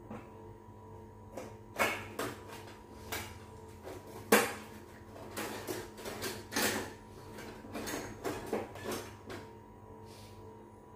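Irregular kitchen knocks and clatter, the loudest a sharp knock about four seconds in.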